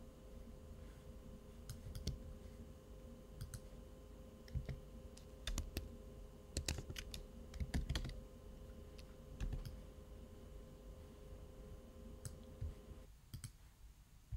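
Irregular clicks and taps of a computer keyboard and mouse, scattered in small clusters, over a faint steady hum that cuts off suddenly near the end.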